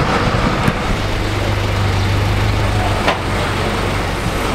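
Motor vehicle running: a steady engine hum with road noise, and two brief knocks, one under a second in and one about three seconds in.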